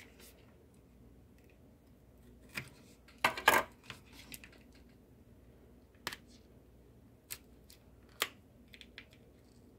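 Scissors snipping open a small product package: a handful of separate sharp snips and clicks, the loudest a short cluster a little over three seconds in.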